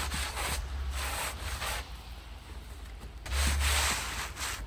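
Snow being brushed and scraped off a wooden board in a few rasping strokes, the longest near the end.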